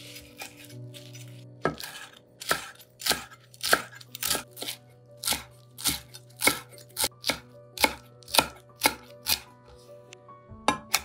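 Chef's knife chopping fresh parsley on a wooden cutting board: sharp knocks of the blade against the wood, about two a second, starting after a second and a half. Near the end a quicker run of chops begins.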